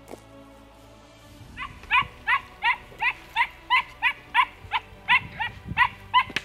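A drever barking in a quick run of about fourteen high-pitched barks, roughly three a second, that starts about a second and a half in and stops just before the end.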